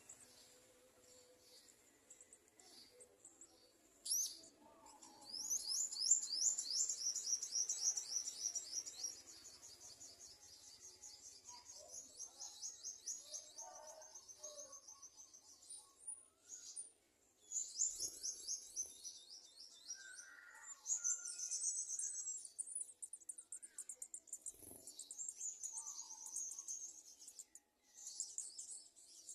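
Garden sunbirds at the nest giving high-pitched, rapid trills of chirps in repeated runs, the longest and loudest a few seconds in, with short pauses between runs. A couple of faint knocks come in the middle.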